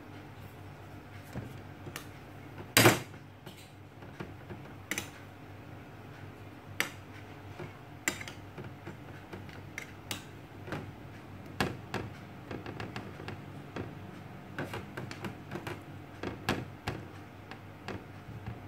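Metal fork and spoon clinking and tapping against plates while scooping mashed fermented cassava onto a spring roll wrapper: scattered light taps, one much louder knock about three seconds in, and a quicker run of taps in the second half.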